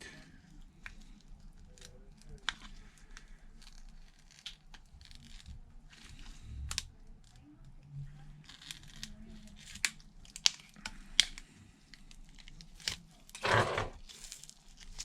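Plastic pry tool working under a phone's glued screen: heat-softened adhesive peeling and tearing, with scattered sharp clicks and scrapes, the loudest clicks about two-thirds of the way through. A brief voice sound comes near the end.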